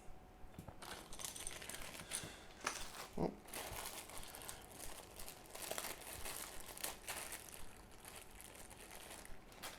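Faint rustling and small clicks of fingers handling a plastic keycap while working a rubber O-ring over its stem.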